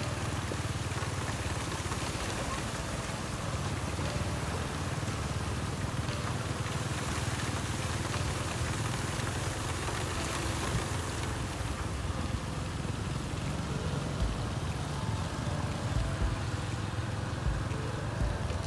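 Vehicle driving through shallow floodwater on a street: steady engine and road noise with water hiss from the wheels, and a few low bumps of wind on the microphone in the second half.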